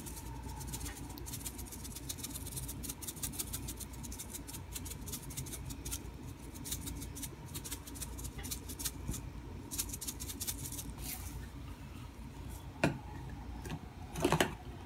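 Fingers sprinkling chopped chives over a shredded-cheese casserole topping: faint, irregular light ticks and rustles over a low steady hum, with two louder taps near the end.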